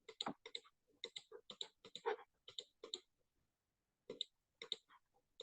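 Faint, irregular clicking at a computer, several clicks a second, pausing for about a second before a few more clicks.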